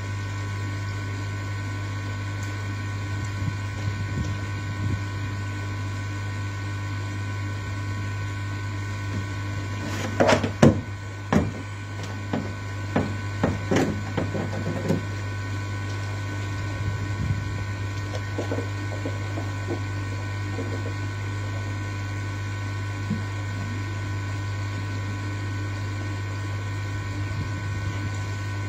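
Steady electric hum with a few thin high whining tones from the running pond filter equipment. From about ten to fifteen seconds in comes a run of sharp plastic knocks and clatter as the black lid of the Nexus filter is lifted off, with fainter handling sounds after.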